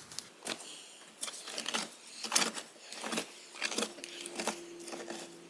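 A metal hand digging tool working in a post hole in gravelly, rocky soil: a string of irregular scrapes and grating strokes, about one or two a second, as it bites into gravel and stones.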